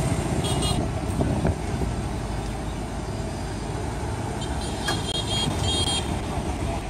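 Steady low outdoor rumble, with a few brief high-pitched tones about half a second in and again around five seconds in.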